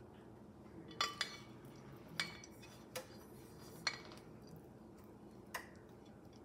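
About six light clinks and knocks, spread unevenly over several seconds, as a silicone spatula scrapes food out of a mixing bowl held over a metal sheet pan.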